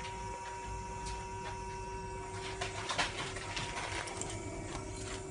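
CNC wheel lathe running as a PCD-tipped insert turns the face of an aluminium alloy wheel in an interrupted cut across the spokes. It makes a steady machine hum with a constant mid-pitched tone and scattered sharp ticks.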